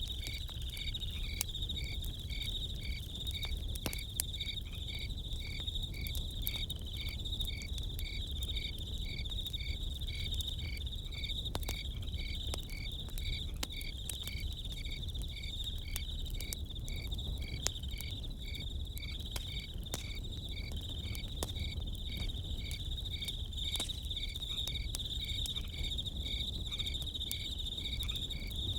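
Crickets chirping in a steady rhythm, about two to three chirps a second, over a continuous high insect trill, with scattered small crackles and pops from a campfire.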